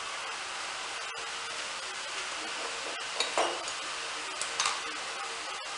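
Steady background hiss with a few light taps, a pair about three seconds in and another pair about four and a half seconds in.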